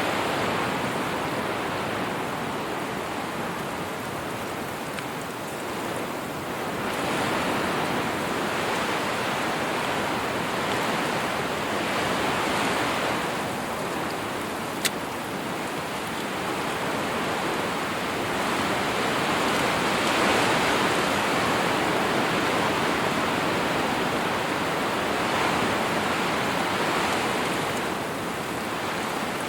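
Wind blowing in gusts, swelling and easing every few seconds, with one brief sharp click about halfway through.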